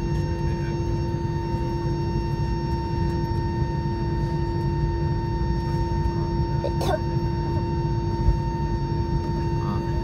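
Cabin noise inside an Airbus A320-200 on the ground after landing: a steady low rumble with constant humming tones. A brief short sound cuts across it about seven seconds in.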